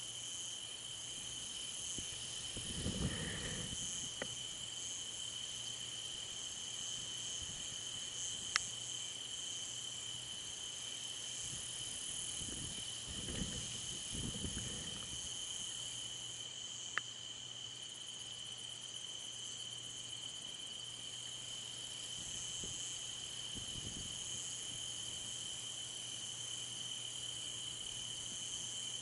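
Steady chorus of night insects, crickets, a constant high chirring. A few short, soft low rumbles and a couple of sharp ticks come through it.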